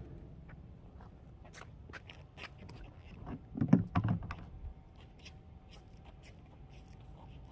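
Hand-work and handling noises: scattered light clicks and scrapes, with a louder thump about three and a half seconds in.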